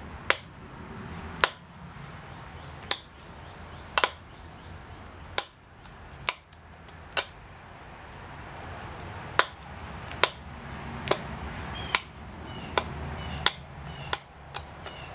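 Sharp clicks of flakes snapping off the edge of a Texas tab flint preform under a copper-tipped pressure flaker, about one a second, some fifteen in all; a few near the end ring briefly.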